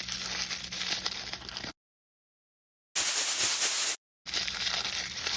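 Plastic blind-bag wrapping crinkling and tearing as it is opened by hand, in three stretches that start and stop abruptly with dead silence between them.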